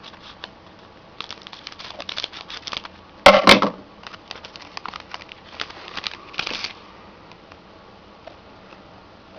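A hockey card pack being opened: the wrapper crinkles and crackles in a run of small rustles, with one loud tearing rip about three seconds in.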